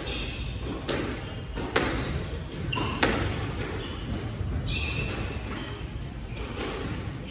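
Squash ball being struck by rackets and smacking against the court walls in a rally: a string of sharp smacks, loudest and closest together in the first three seconds. Short high squeaks of shoes on the wooden court floor come in between.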